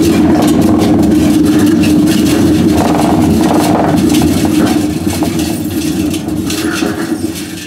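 Commercial front-load washer drum spun by hand, chattering and rumbling on worn-out drum bearings. It is loud for about five seconds, then slowly dies away as the drum coasts down.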